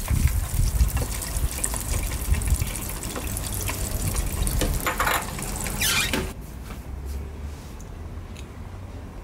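Hot oil in a deep fryer sizzling and crackling as the basket of fried tofu is lifted out and oil drips back in. It stops suddenly a little after six seconds in.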